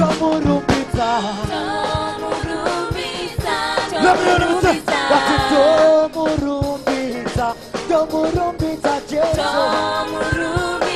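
Upbeat live gospel praise music: voices singing over drums that keep a steady beat.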